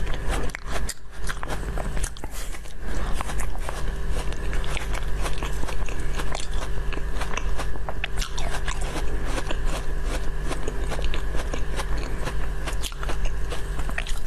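Close-up biting and chewing of a thin, flat orange snack sheet: a dense run of small crackly clicks and crunches over a steady low background hum.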